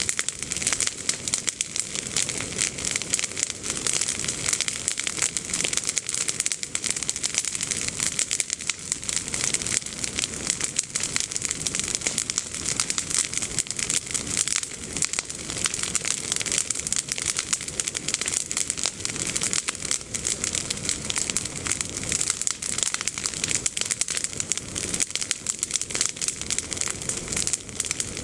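Bonfire of freshly pruned olive branches, the green leaves and twigs crackling and popping in a dense, steady stream of small snaps.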